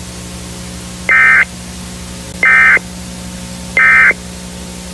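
Three short, identical bursts of Emergency Alert System (SAME) digital data tones, evenly spaced a little over a second apart: the end-of-message signal that closes the alert. A steady low hum and a hiss run beneath them.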